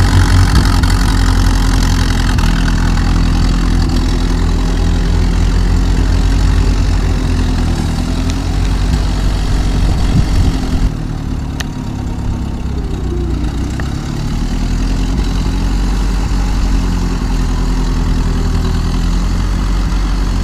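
Old car engine idling with a steady low rumble. About eleven seconds in it turns quieter and thinner for a few seconds, with a small click, then settles back to its steady idle.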